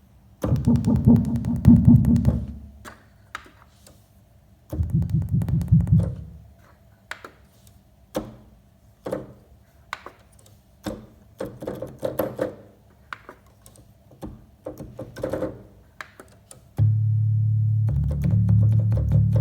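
Yamaha DX7IIFD synthesizer making strange noises. Two dense, low, buzzing bursts come first, each about two seconds long. A run of short clicky notes follows, and a steady low drone sets in near the end.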